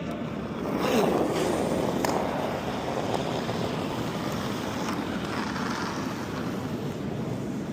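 Granite curling stone sliding down the pebbled ice, a steady rumble, louder about a second in, with faint voices from the rink.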